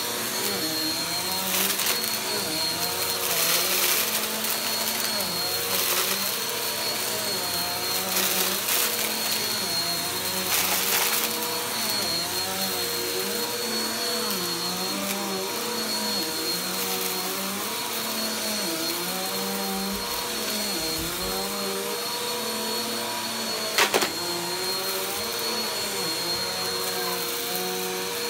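Vacuum cleaner running over carpet, its motor pitch dipping and recovering with each push-and-pull stroke, under a steady high whine. Crackling bursts in the first ten seconds or so as debris is sucked up, and a single sharp click late on.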